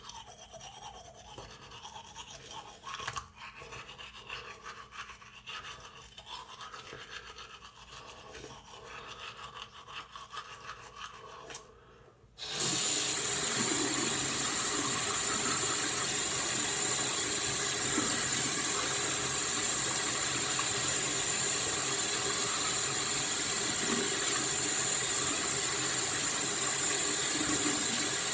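Toothbrush scrubbing teeth, soft and irregular. About twelve seconds in, a tap is turned on and water runs from it in a loud, steady stream.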